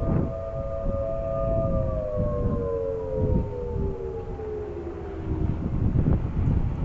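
Several distant Federal Signal Thunderbolt outdoor warning sirens holding their steady alert tone, then winding down together: the pitch starts falling about two seconds in and dies away by around five seconds, marking the end of the alert. Wind rumbles on the microphone throughout.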